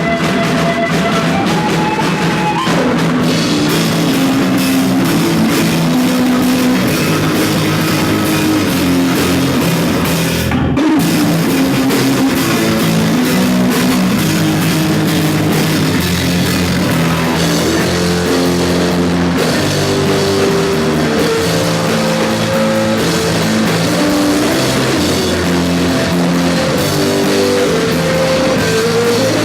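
Rock band playing live: drum kit and electric guitars, with a melodic line stepping up and down over a steady beat.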